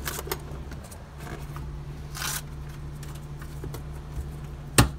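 2007 Ford Econovan's 1.8-litre petrol four-cylinder idling steadily, heard from inside the cab, under the rustling and scraping of the phone being moved around. There is one sharp knock near the end.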